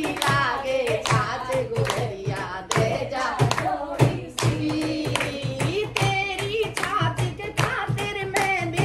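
A group of women singing a song together, keeping time with steady hand-clapping, about three claps a second.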